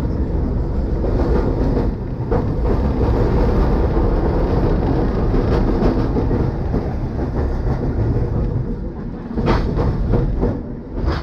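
Heritage W-class tram running along street track, heard from inside the driver's cab: a steady low rumble of wheels and running gear on the rails, with sharp knocks from the wheels on the track here and there, a cluster of them about nine and a half seconds in.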